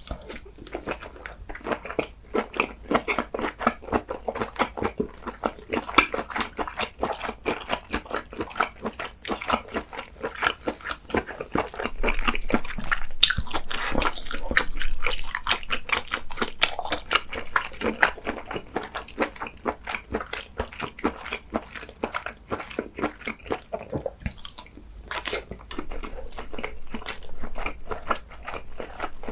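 A person chewing and crunching food close to the microphone, with a rapid run of crisp crunches that are busiest and loudest in the middle.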